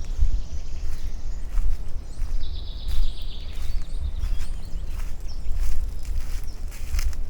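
Outdoor ambience: a heavy low rumble on the microphone with scattered soft knocks, and a high, thin bird call about two and a half seconds in, lasting about a second.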